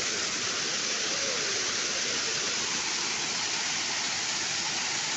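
Waterfall, a steady rush of falling water with no change in level.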